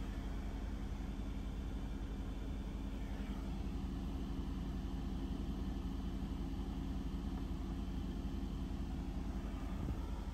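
Mercedes-AMG GT S's 4.0-litre twin-turbo V8 idling steadily.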